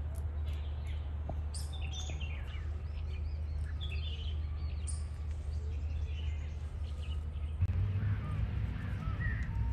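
Birds chirping and calling in short, varied notes, over a steady low hum of background noise that grows louder near the end.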